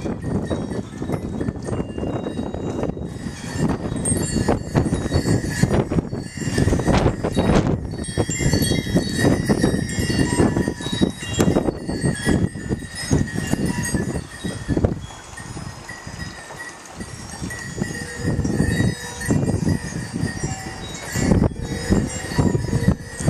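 Gusty desert wind buffeting the microphone in surges, with scattered high ringing tones sounding through it.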